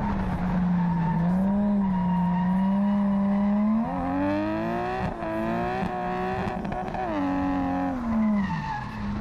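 A drift car's engine held at high revs, its pitch climbing about four seconds in, dipping sharply about a second later, then climbing again and falling away near the end, with tyres squealing as the car slides.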